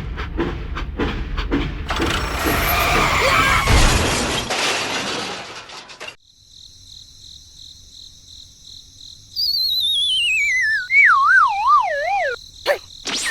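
A small engine runs with a clattering rattle and then cuts off abruptly. This is followed by a steady high ringing and a whistle that slides downward in pitch while wavering up and down, like a cartoon falling sound effect.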